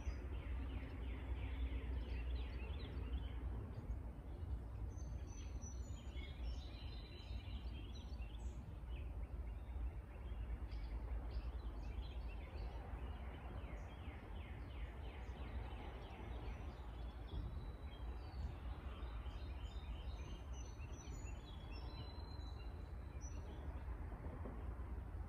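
Several songbirds chirping and trilling on and off, over a steady low rumble of outdoor background noise.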